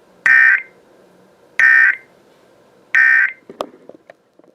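Emergency Alert System end-of-message data bursts: three short bursts of two-tone digital screech, evenly spaced about 1.3 seconds apart, signalling the end of the alert. A few faint clicks follow.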